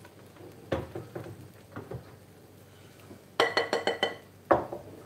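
Kitchenware being handled: a few dull knocks as a wooden chopping board is set down, then a quick run of about eight sharp, ringing clinks from a glass mixing bowl, and another knock near the end.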